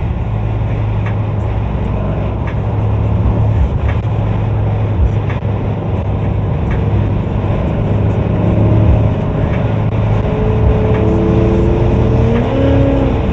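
Car running: a steady low engine drone with road noise, and a few tones rising in pitch near the end.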